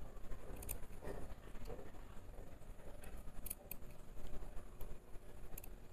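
Tailor's scissors snipping into coat cloth: a few faint, short snips, cutting the slit for a buttonhole.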